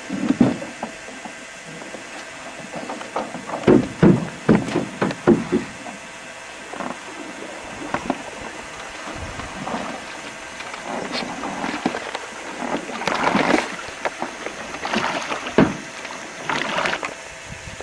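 Canoe and paddle on the water: irregular knocks against the hull and bursts of splashing, clustered in a few flurries.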